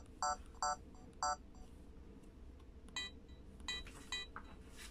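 Sony DSC-W810 compact camera beeping as its control wheel buttons are pressed through a menu: four short lower beeps in the first second or so, then three short higher beeps about three seconds in.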